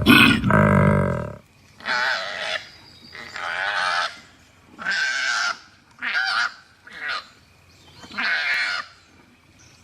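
Koala calling: a deep, rumbling bellow ends about a second and a half in. It is followed by six short, higher, honking cries spaced about a second apart.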